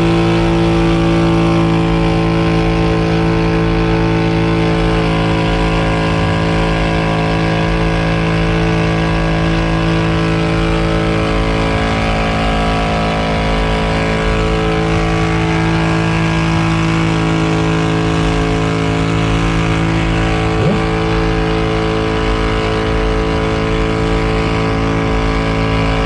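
ATV engine running hard at a steady high speed, its pitch held nearly constant, with a brief rising squeal about twenty seconds in.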